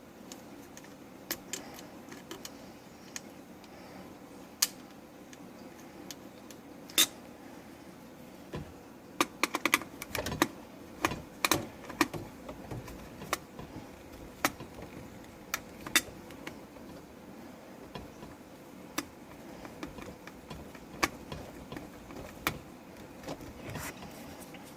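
Scattered sharp metallic clicks and taps, thickest about nine to twelve seconds in, from hand work on the garbage disposal's wiring: the electrical cover plate and its screws being fitted back on.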